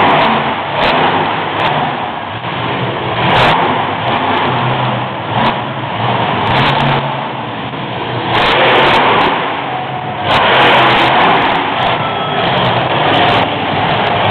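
Monster truck engine revving hard, its loudness swelling and dropping as the throttle is worked, with louder pushes about eight and ten seconds in.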